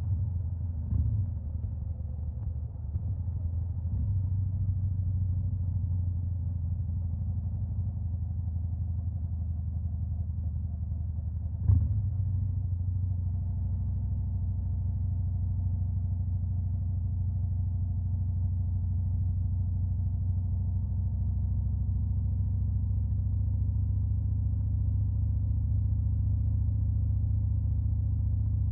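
Stage 2-tuned Harley-Davidson Fat Boy V-twin running steadily at a low, even pitch, with one sharp thump about twelve seconds in.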